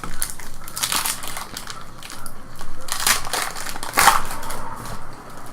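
Foil trading card pack wrappers being torn open and crinkled by hand, in several crackling bursts; the loudest come about three and four seconds in.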